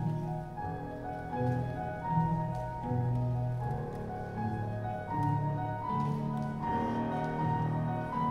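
Slow instrumental music of held, overlapping notes, with a keyboard sound like piano.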